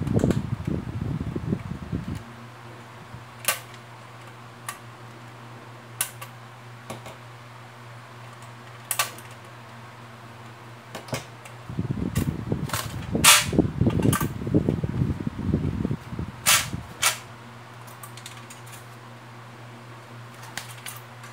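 Sharp metallic clicks and clacks of pliers, wire and metal clips on a bathroom scale's sheet-metal base plate, coming singly and in quick clusters. A steady low hum runs underneath, with low rumbling for about two seconds at the start and again in the middle.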